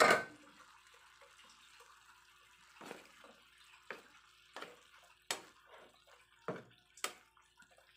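Litob clams simmering in oyster sauce in a nonstick pan, with small bubbling pops. A wooden spatula stirs the hard shells, making scattered clicks and short scrapes about a second apart.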